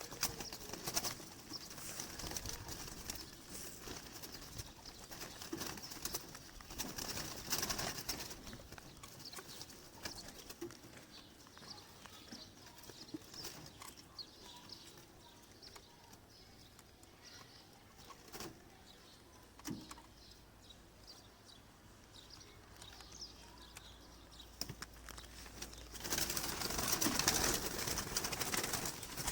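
Pigeons cooing, with scattered short clicks and rustles and a louder stretch of activity near the end.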